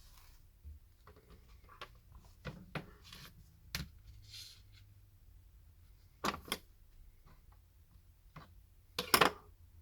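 Small clicks and taps of hand tools and smartphone parts being handled during a repair, with a loud double click about six seconds in and a loud cluster of clicks near the end.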